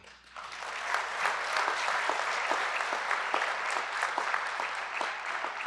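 Audience applauding, swelling within the first second and then holding steady as many hands clap.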